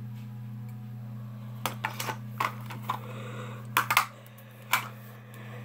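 Small hard clicks and taps of makeup cases and tools being picked up and handled, about eight in a few seconds, the loudest pair a little before the middle, over a steady low hum.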